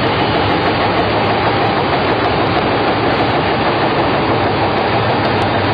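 Baby diaper production machine running: a loud, steady mechanical din with a constant low hum beneath it.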